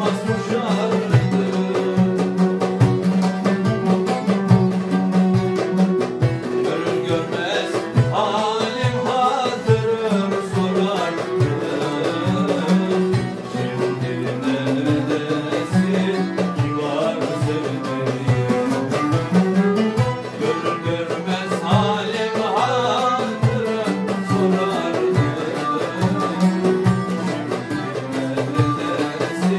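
Live Turkish folk music: a bağlama, an oud and a violin playing a melody together over a steady beat on a darbuka.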